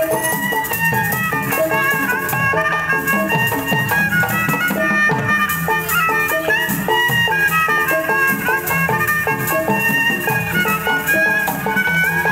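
Betawi traditional music accompanying ondel-ondel dancing: a bowed-fiddle melody that slides between notes over rattling percussion and hand-drum strokes that drop in pitch, playing steadily.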